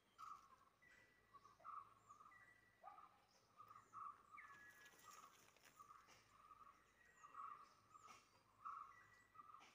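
Faint outdoor ambience with small birds chirping in the background: short, quiet calls repeating about twice a second, mixed with a few high chirps.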